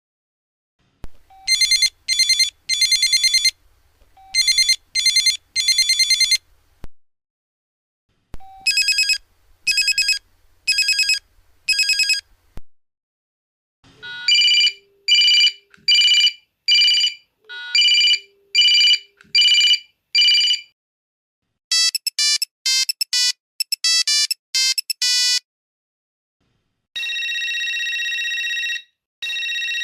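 A run of different electronic mobile phone ringtones, one after another with short gaps. First come trilling rings in quick bursts, then a string of beeps about once a second, then a fast little run of notes, and near the end a steady ring.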